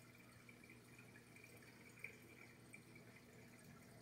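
Faint trickling and dripping of a reef aquarium's circulating water over a low steady hum, with one faint tick about two seconds in.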